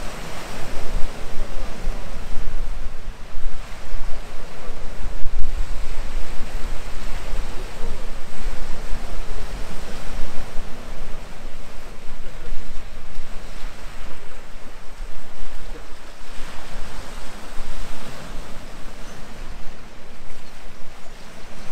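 Sea waves washing onto the shore, the wash swelling and falling every few seconds, with wind buffeting the microphone in a low rumble.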